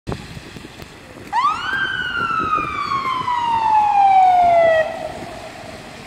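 Fire engine siren giving a single wail. It rises quickly about a second in, falls slowly for about three seconds, then cuts off suddenly, over the hiss of passing traffic.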